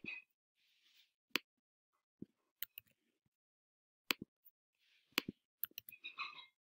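Sparse, sharp clicks of a computer mouse and keyboard, some single and some in quick pairs or triples.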